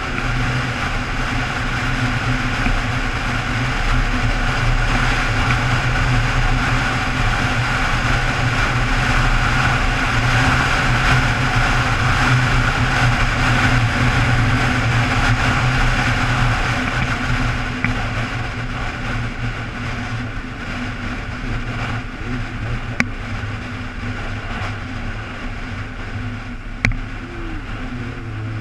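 Sport motorcycle engine running at a steady cruise, with wind rushing past the microphone. The engine eases off and gets a little quieter after about eighteen seconds, and a few sharp clicks come in the second half.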